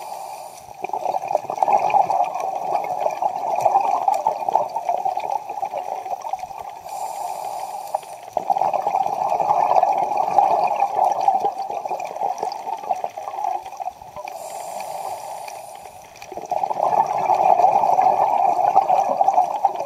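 A scuba diver's breathing through a regulator, heard underwater: a short hiss on each inhale, then several seconds of bubbling, rushing exhaled air. About three breaths repeat at an even pace.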